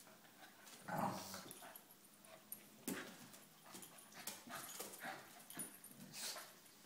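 Two dogs play-wrestling, making short snorts and whimpers in irregular bursts, the loudest about a second in.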